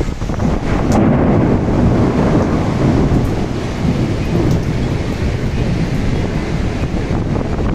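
Thunderstorm: a long, low rumble of thunder swelling about a second in, over steady heavy rain.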